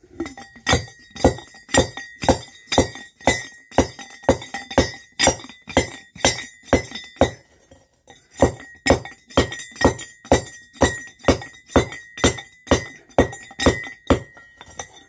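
Hand-operated tube rock crusher: a heavy steel pounder is driven down again and again onto gold ore in the tube, about two strikes a second, each strike a sharp clink with a metallic ring. There is a brief pause about halfway through.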